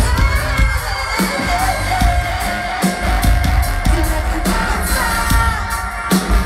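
Live electronic pop band playing through a large outdoor PA, heard from among the audience: a woman sings long held notes over heavy bass and a steady drum beat.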